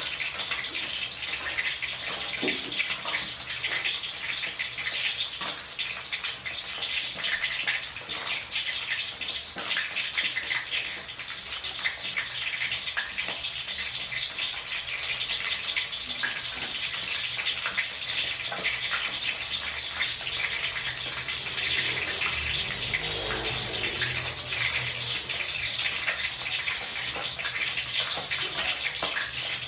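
Hot oil sizzling and crackling steadily around a whole fish shallow-frying in a wok.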